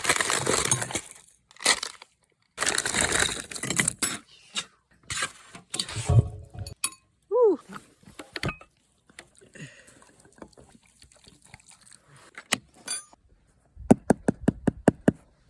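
Handling sounds while instant noodles are prepared: packaging rustling in several bursts, clinks and knocks of dishes and utensils, and a quick run of sharp clicks near the end.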